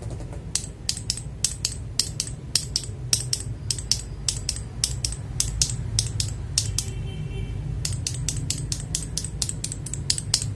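Unlubricated mechanical keyboard switches pressed over and over, a sharp clack about three to four times a second, with a short pause about two-thirds of the way through. A steady low hum runs underneath.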